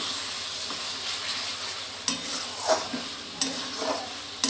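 Spiced onion-garlic-chilli masala paste sizzling steadily in hot oil in a pan. In the second half, it is stirred with a few short scrapes of the spoon against the pan.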